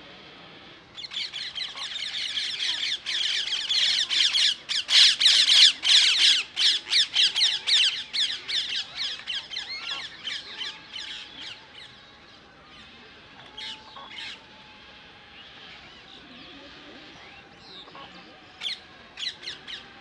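A flock of wetland birds squawking and chattering. A dense burst of rapid, harsh calls starts about a second in and is loudest a few seconds later. It thins to scattered calls after about ten seconds, and the rapid calls return near the end.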